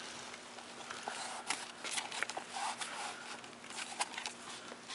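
Soft rustling with a few small taps and clicks as cloth tape is pressed and smoothed onto a book's spine by hand.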